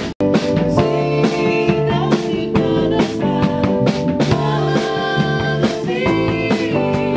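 A rock band playing: drum kit with cymbals, electric guitars and bass, with a woman singing over it. The sound cuts out for a split second just after the start, then the music carries on.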